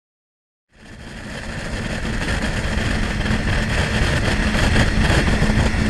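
Three outboard motors driving a boat at speed, mixed with the rush of wind and wake water. The sound fades in from silence about a second in and builds to a steady level.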